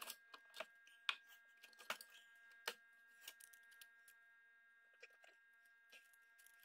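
Faint clicks and taps of a screwdriver and small plastic and metal computer parts being handled during disassembly. The sharpest clicks come about one, two and nearly three seconds in, and sparser taps follow.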